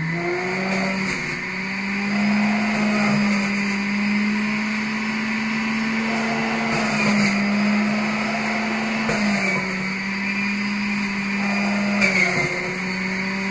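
Electric juicer motor running with a steady whirring hum. Its pitch sags slightly about nine seconds in and picks up again near the end.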